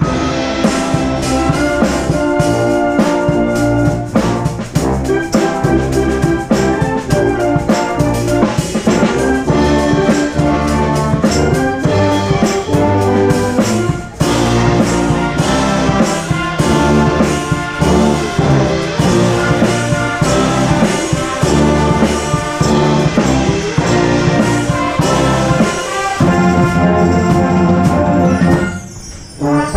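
Wind band playing, brass in front with a drum kit keeping a steady beat on drums and cymbals. The band breaks off briefly about a second before the end, then comes back in.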